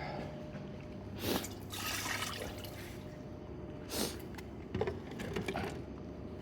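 Leftover ramen broth poured out of the bowl, splashing in several short gushes, over a steady low electrical hum.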